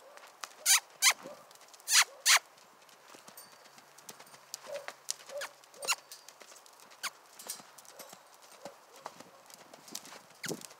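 A horse's hooves beating on the soft dirt of a round pen as it trots and lopes loose, an uneven run of short thuds and clicks. Two pairs of much louder, sharp clicks stand out within the first two and a half seconds.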